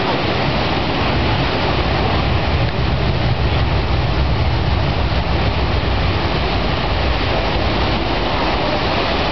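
Mur river rushing through whitewater rapids: a steady, loud roar of water, with a deeper rumble strongest through the middle.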